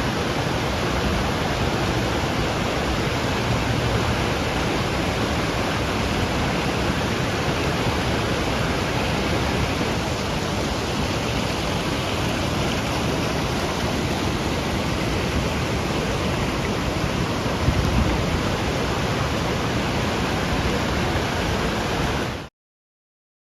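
Steady, loud rush of water, with a brief surge about three-quarters of the way through, cutting off suddenly near the end.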